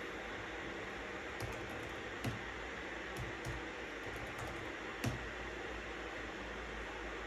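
Steady white-noise hiss with a few scattered computer-keyboard keystrokes, isolated clicks rather than fast continuous typing. The sharpest click comes about five seconds in.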